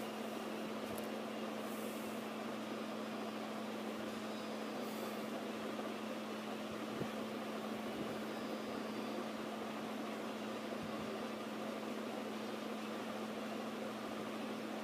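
Steady background hum with an even hiss, one constant low tone throughout and no changes or distinct events.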